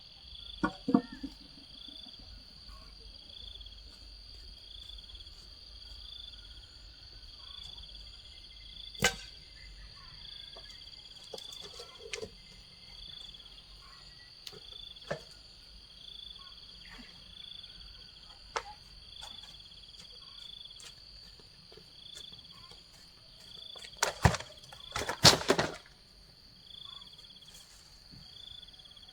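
Insects chirping steadily, with a high pulsing call repeating about every second and a half. Scattered sharp knocks and clatter of handled objects are heard over it, the loudest burst of knocks coming about three-quarters of the way through.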